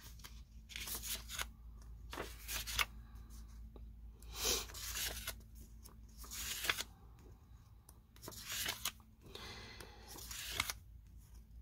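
Sheets of scrapbook paper being flipped through by hand, each sheet sliding off the stack with a short papery swish at irregular intervals about a second apart.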